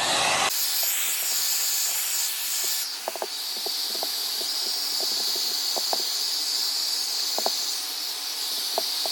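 Handheld hot-air blower running steadily, a hiss of rushing air with a steady high whine, used to heat an adhesive grip so it molds to a pistol frame. A few faint, light clicks are scattered through it.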